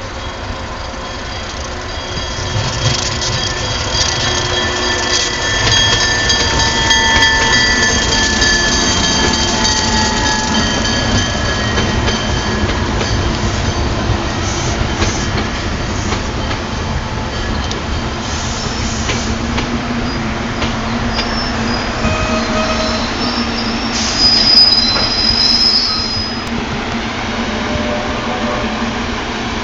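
A train running by with its steel wheels squealing against the rails over a steady rumble: several high, thin squeal tones come in about two seconds in, fade, and come back briefly at their loudest about three-quarters of the way through.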